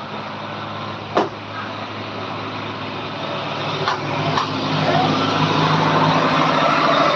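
A vehicle engine running steadily and growing louder about halfway through, with a few sharp knocks, the loudest about a second in.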